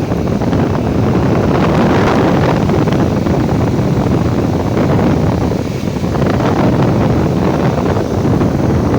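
Pressurised spray jetting onto an air-conditioning cooling coil: a loud, steady rushing hiss that surges and briefly dips twice.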